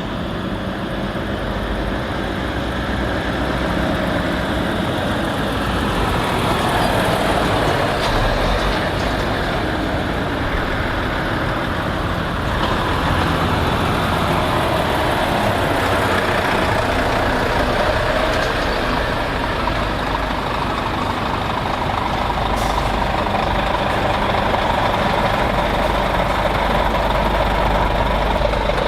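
Lorry engines running as trucks move past at low speed, the engine note rising and falling.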